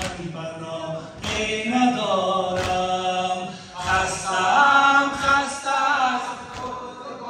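Mourners chanting a noha, a Shia Muharram lament, together without instruments. A sharp slap comes about every 1.3 seconds, typical of chest-beating (sineh zani) keeping time with the chant.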